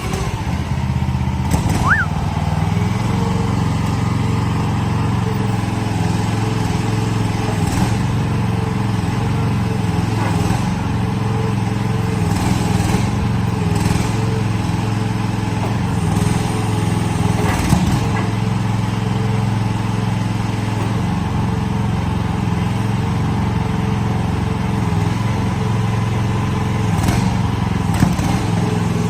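Small engine of a Vicsec VC13 mini-excavator running steadily just after start-up, with an even low drone and a few faint knocks.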